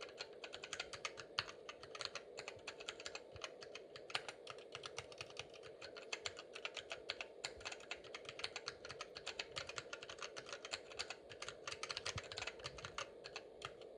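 Keys being typed on a vintage Toshiba PA7354E numeric keypad with linear Mitsumi Minimax switches: a fast, unbroken run of short key clicks, several strokes a second.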